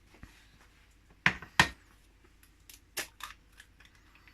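Kitchen things being handled on a counter: two sharp knocks close together about a second in, then a smaller knock and a few light clicks and taps, as a dish and a yoghurt pot are set down.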